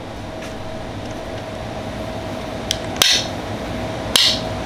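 Wera 7461 torque screwdriver driving a screw into a wood block, its torque-limiting mechanism giving two sharp clicks about a second apart as the set torque of about 11 inch-pounds is reached. A steady hum runs underneath.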